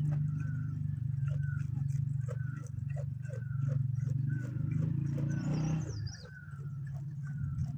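Farm animal calls: a short call repeated about twice a second, with a few high falling chirps, over a steady low hum that stops about six seconds in.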